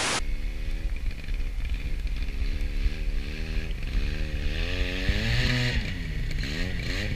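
A brief burst of TV-static hiss, then a Buran snowmobile's two-stroke engine revving up and down repeatedly as the machine labours in deep snow and bogs down.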